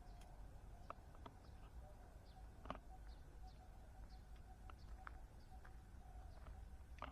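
Faint birds chirping: short, thin high notes scattered every second or so over a low background hum, with a few soft clicks.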